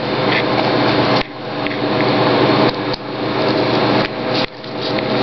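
The bill acceptor of a 20-year-old vending machine runs its motor on an inserted bill and rejects it. It makes a loud mechanical whir in stretches of about a second and a half, each cut off sharply, three times.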